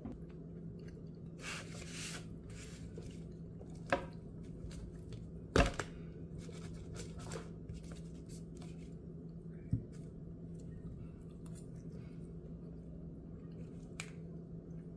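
Fork scraping and tapping on a paper plate while fried eggs are cut and eaten, with a few sharp knocks, the loudest about five and a half seconds in, over a steady low hum.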